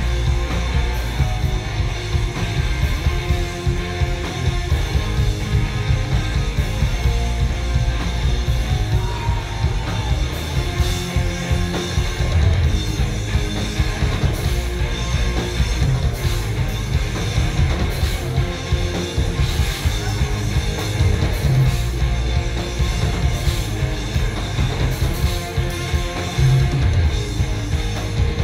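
Live rock band playing loudly: electric guitars with bass and a drum kit, played continuously.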